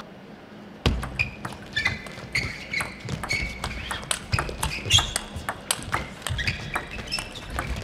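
Table tennis rally: the plastic ball clicking off rackets and the table in quick succession, starting about a second in. Shoes squeak briefly on the court floor between strokes.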